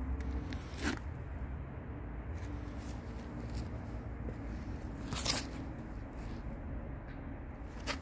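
Handling sounds from hand work on a brush cutter: two brief sharp scrapes, the louder and longer one about five seconds in, over a steady low rumble. The engine is not running.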